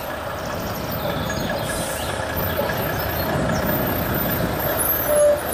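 Diesel engine of a Volvo FH heavy recovery truck running steadily at low speed as the truck drives slowly past.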